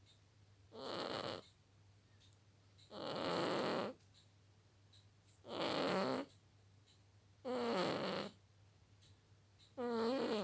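Cat snoring in its sleep: five snoring breaths about two seconds apart, each under a second long, several carrying a wavering pitched note.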